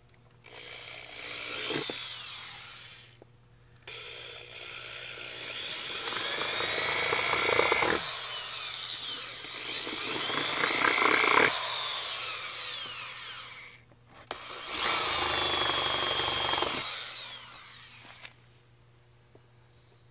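Power drill boring out holes in a plastic car bumper with a 3/8-inch bit, run in three spells. The motor's pitch rises as it speeds up and falls as it slows.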